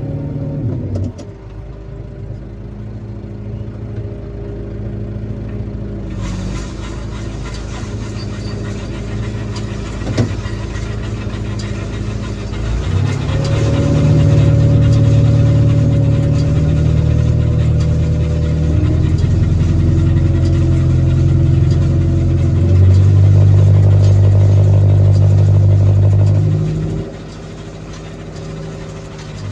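Tractor engine running steadily. About 13 seconds in it is brought up to higher revs and held there, then it drops back to a lower speed a couple of seconds before the end. From about six seconds in there is added mechanical clatter and hiss over the engine.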